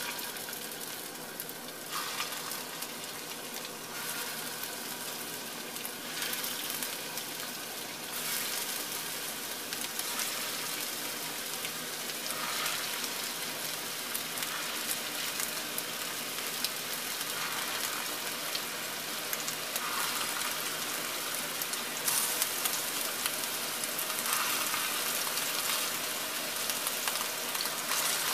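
Raw meatballs sizzling in hot oil in a cast-iron skillet, the sizzle growing louder in steps as more meatballs are laid in.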